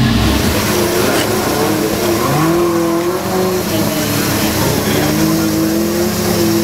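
Off-road 4x4 engine revving under load, its pitch rising and falling, with a clear rise about two seconds in.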